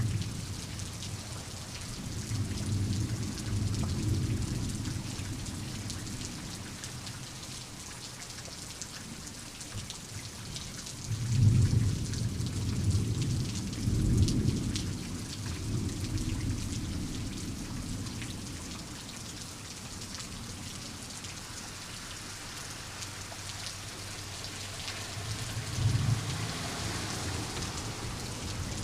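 Steady rain falling with thunder rolling in the distance. Low rumbles swell a few seconds in, the loudest and longest rolls through the middle for several seconds, and a short rumble comes near the end.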